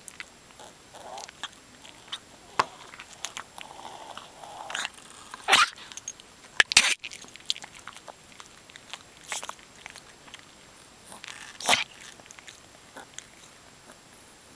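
A dog with a breathing problem making short, irregular noisy breath sounds, scattered unevenly, with louder ones about midway and again near the end.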